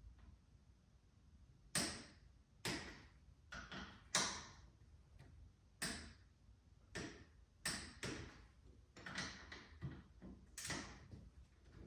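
Click-type torque wrench working on the fork's axle clamp bolts, set to 15: a dozen or so sharp metallic clicks, each with a short ring, coming irregularly about half a second to a second apart.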